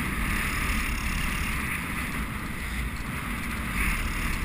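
Wind buffeting a helmet-mounted camera's microphone on a galloping racehorse's rider: a steady rushing noise over a low rumble.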